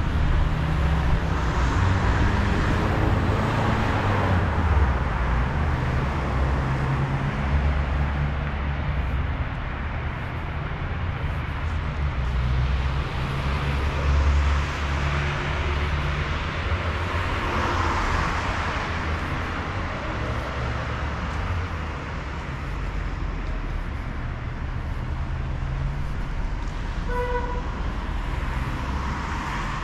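Road traffic noise along a city street with a steady low rumble, and a short car horn toot near the end.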